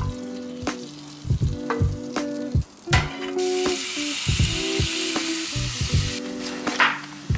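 Diced raw chicken sliding into hot oil in a square pan and sizzling hard, starting about three and a half seconds in and lasting about three seconds. Background music with a steady beat plays throughout.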